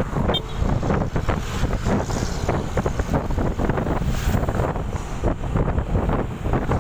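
Wind buffeting the microphone of a camera on a moving motorcycle, a steady gusty rush with road and vehicle noise underneath.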